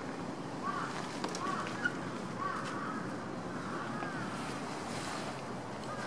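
Steady outdoor background noise, like light wind on the microphone, with faint short chirping calls recurring about once a second and a light click just before two seconds in.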